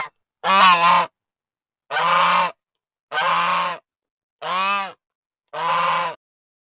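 Goose honking: five separate honks, about one every second, then the calls stop near the end.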